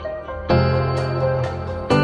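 Instrumental background music of sustained, ringing chords, with a new chord struck about half a second in and another near the end.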